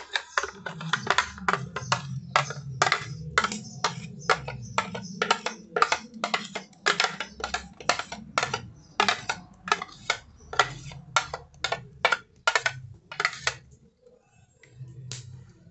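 Quick, repeated knocks and taps, about two a second, as the last blended guava pulp is tapped and scraped out of a plastic blender jug into an aluminium pan; the knocking stops near the end.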